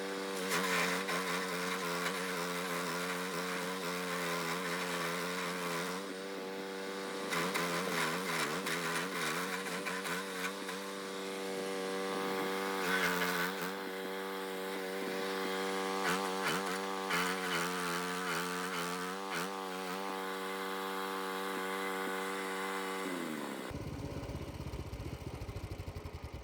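Small petrol engine of a stump grinder running fast, its pitch wavering as it takes load while grinding. Near the end the engine winds down and stops.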